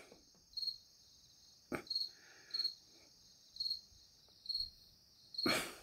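A cricket chirping faintly, a short high chirp repeated about once a second. A single click sounds just under two seconds in, and a short rustle comes near the end.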